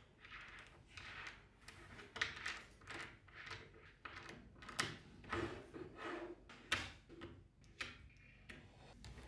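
Small magnetic balls clicking and rattling as they are handled and snapped together, in a run of irregular sharp clicks and short scraping rattles.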